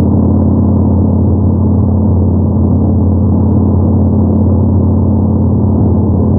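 Yamaha MT-01's 1670 cc 48-degree V-twin engine running at a steady cruising speed, a deep, even exhaust drone that holds one pitch with no revving or gear change.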